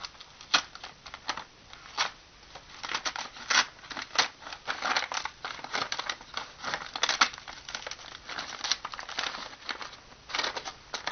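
A shipping envelope being cut open and handled: irregular snips, rustling and crinkling of the packaging.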